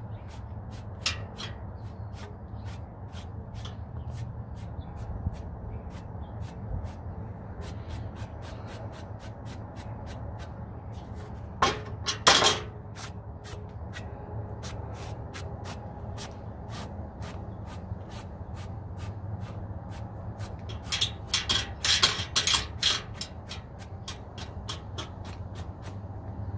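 A dry paintbrush sweeping dust off a rough wooden fence board, rubbing in short scraping strokes that are loudest about 12 seconds in and again in a run of strokes about 21 to 23 seconds in.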